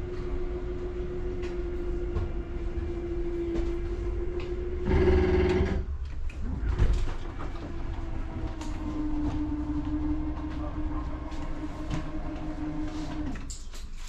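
Electric slide-out motor of a Forest River Salem travel trailer running as the rear slide-outs move: a steady whine, a louder, harsher stretch about five seconds in, then a slightly lower steady whine that stops shortly before the end.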